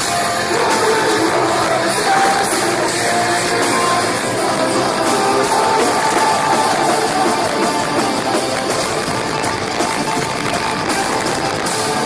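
A metalcore band playing live and loud: electric guitars, drums and singing voices.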